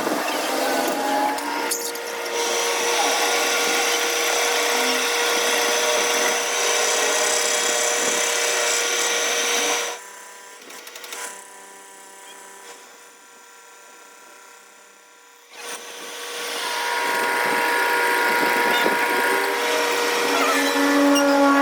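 A power tool running, with a steady tone under dense noise; it drops away for about five seconds in the middle, then runs again.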